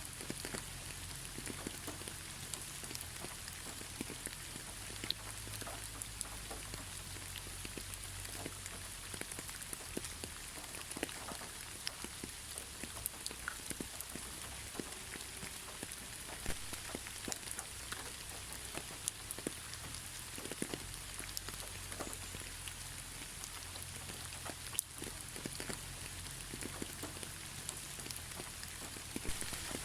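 Gentle, steady rain without thunder: a continuous hiss with many scattered drop ticks.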